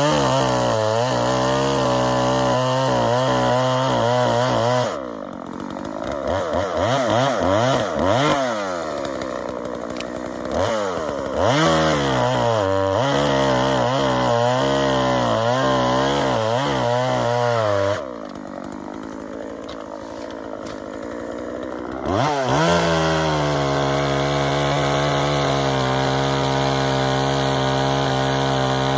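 Two-stroke chainsaw cutting hard timber. It runs at high revs, and about five seconds in the engine speed sags and wavers for several seconds as the saw bogs in the cut. It picks back up, drops to a low quiet run for a few seconds, then climbs back to steady high revs. The saw is bogging and running poorly in very hard wood with freshly lowered rakers.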